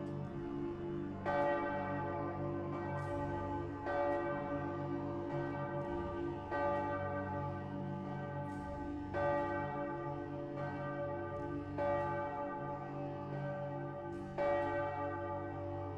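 Church bells ringing: a bell struck about every 1.3 seconds, each stroke ringing on over a steady hum of lower tones.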